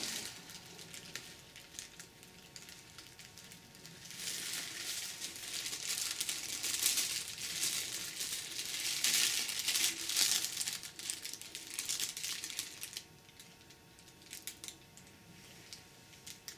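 Bubble wrap and a thin plastic bag crinkling and crackling as they are handled and unwrapped from around a camera body. Softer at first, it gets loud for several seconds in the middle, then dies down to a few scattered crackles near the end.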